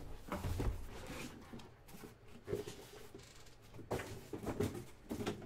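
Light handling sounds of trading-card packaging: scattered soft clicks and rustles.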